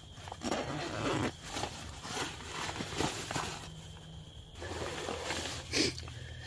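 Nylon bivy bag and sleeping bag rustling in several bursts as a person shifts inside them and pulls the hood over his head.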